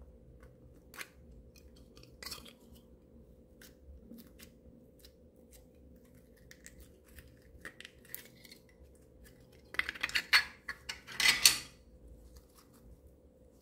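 Sticky slime crackling and squelching as it is squeezed and pulled out of a soft plastic container, with scattered small clicks and then a loud run of crackles about ten seconds in that lasts about two seconds.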